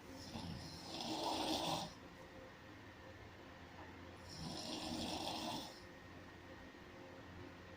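Snoring: two long snores about four seconds apart, each lasting about a second and a half, with quieter breathing between.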